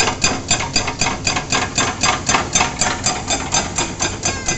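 Excavator-mounted hydraulic breaker hammering the road surface: a rapid, steady run of sharp metallic blows, about four a second.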